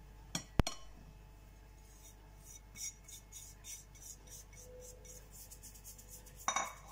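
A sharp clink of a plate against a glass mixing bowl, then soft, rapid patters and scrapes as bread flour is poured and brushed off the plate into the bowl, and a clatter near the end.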